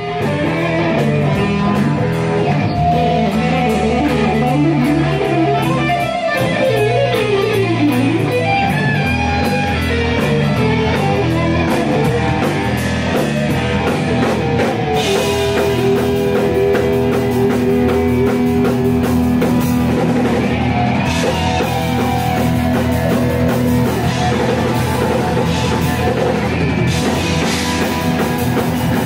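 Thrash metal band playing loud: electric guitars, electric bass and drum kit together. A guitar line bends up and down early on, followed by long held guitar notes over the driving drums.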